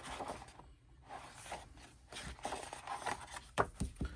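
Paper rustling and sliding as the pages of an album photobook are handled and turned, with a few sharp taps near the end.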